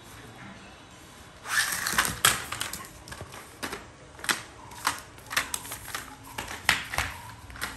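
A German shepherd grabbing and mouthing a hard plastic toy car on stone floor tiles: a burst of scuffling about a second and a half in, then rapid, irregular clicks and clatter.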